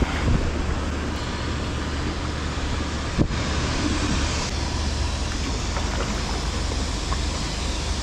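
Wind buffeting the microphone over a steady rush of river water, with a single sharp knock about three seconds in.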